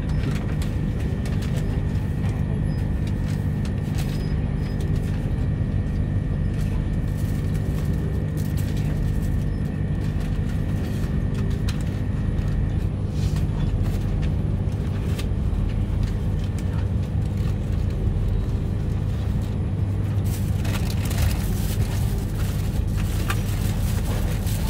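Steady running rumble heard from inside a Queensland Rail electric Tilt Train moving at speed. A faint high steady whine stops about halfway through, and a run of faint clicks comes near the end.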